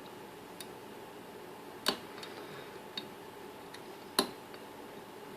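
Light metallic clicks of lock picks working the pins of an Assa 700 lock cylinder, a few separate clicks with two louder ones about two seconds apart.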